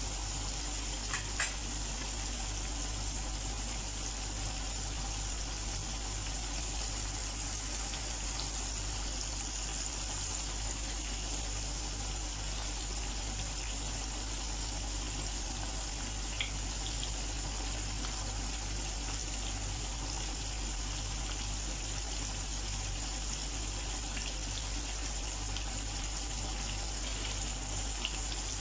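Battered chicken pieces deep-frying in a pan of hot oil: a steady, even sizzle. A few short clicks stand out near the start, about midway, and near the end.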